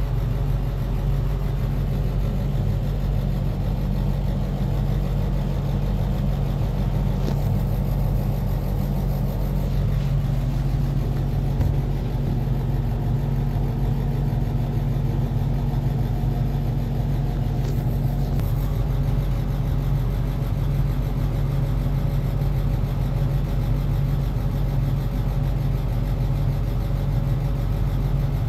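Steady low mechanical hum inside an enclosed Ferris wheel gondola, unchanging throughout.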